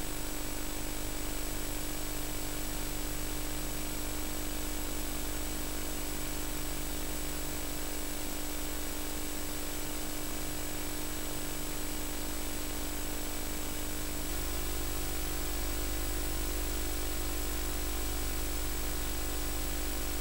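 Steady tape hiss with electrical hum and buzz on the audio track of a VHS recording, with no programme sound. About two-thirds of the way through the hum changes, its low part getting louder.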